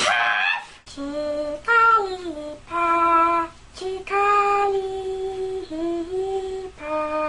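A young woman's voice imitating Pokémon cries: a run of short pitched, sung-like notes stepping up and down, some gliding, with one note held for over a second in the middle.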